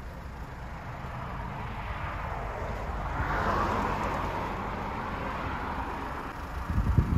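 Car road noise heard from inside the moving cabin: a steady low rumble of tyres and engine. A rushing noise swells and fades around the middle, and a few loud low thumps come near the end.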